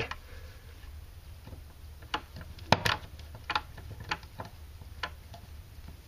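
Screwdriver turning a receptacle's mounting screw and the metal receptacle shifting in its electrical box as it is centred and tightened: a series of small, irregular clicks, one sharper click a little before the middle.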